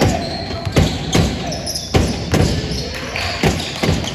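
Basketball being dribbled on a hardwood gym floor, about seven echoing thumps at an uneven pace, over a background murmur of voices in the large hall.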